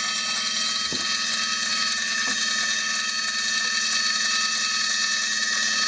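Small shaded-pole motor of a Fr Sauter SW30 timeswitch running steadily, whirring as it winds up the clockwork spring reserve through its gearing and ratchet. It is a little bit too noisy, which the owner takes as a sign that it needs lubrication.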